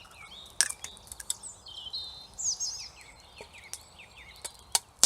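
Small birds singing in quick warbling phrases, with a few sharp clicks and taps among them; the loudest click comes about half a second in and another near the end.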